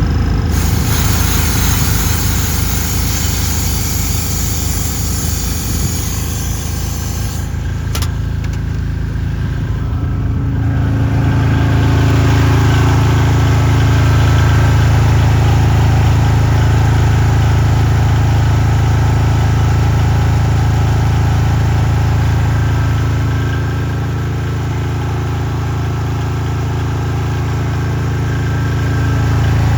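Welding rig's engine-driven welder running steadily. About eight seconds in there is a sharp click, then the engine's note shifts over the next few seconds and settles fuller and louder.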